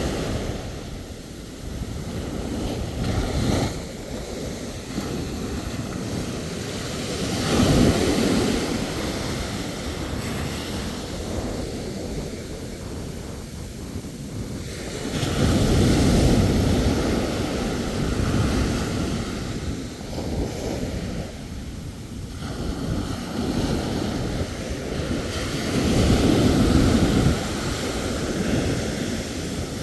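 Ocean surf: waves breaking and washing up the shore in a continuous rushing noise that swells and ebbs. The loudest surges come about eight, sixteen and twenty-six seconds in.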